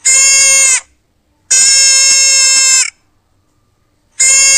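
Deer bleating: three separate calls, each held at a steady pitch and dipping slightly at its end. The middle call lasts longest, and the third starts about four seconds in.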